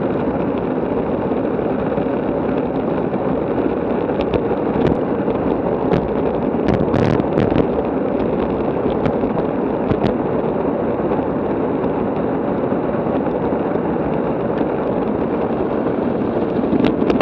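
Steady rushing wind noise on a bike-mounted action camera's microphone while riding at about 30 mph, with a few sharp ticks between about four and ten seconds in.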